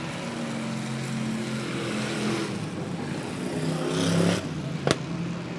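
Super Stock race car engines running around a wet asphalt oval, with steady engine tones over a hiss. One car's engine swells louder until about four seconds in and then cuts off abruptly, and a single sharp click follows about a second later.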